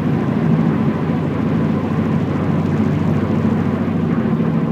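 Cabin noise of a 2007 Subaru Impreza at highway speed: a steady, heavy, deep drone and vibration from the car's running gear, worse with speed. The driver's first suspicion is loose wheel nuts.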